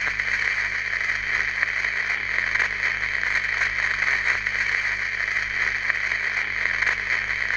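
Steady hiss and crackle of a shellac 78 rpm record's surface under a gramophone needle, with no music left in the groove: the song has ended and the needle is tracking the blank grooves near the label.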